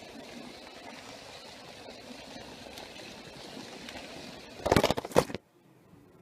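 Steady rolling rumble of a toy train carrying the phone across the carpet, then a short burst of loud knocks and rattling about five seconds in, followed by near silence.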